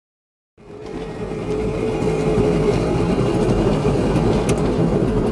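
Van engine and tyre noise heard from inside the cab while driving: a steady low hum with a faint steady tone above it. It starts out of silence about half a second in and swells up over about a second.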